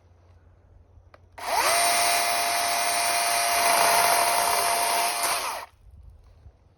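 Chainsaw run for about four seconds: it spins up quickly to a steady high pitch, holds there and cuts off abruptly.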